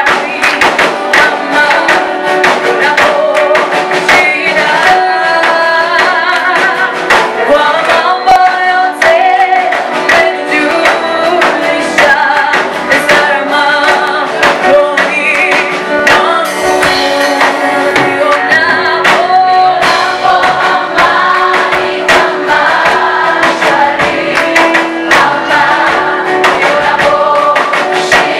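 Gospel praise-and-worship singing: a group of voices sings over instrumental backing with a steady beat.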